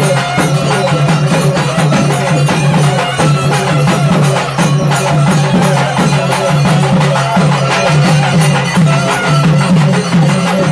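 Loud traditional Tamil festival music: fast, dense drumming, many strokes a second, over a steady low drone.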